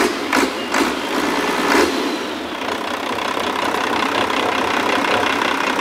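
International DT466 turbocharged inline-six diesel engine running just after a restart, with a few sharp knocks in the first two seconds before it settles into a steady run. It was restarted at once after being stalled by CO2 fed into its intake.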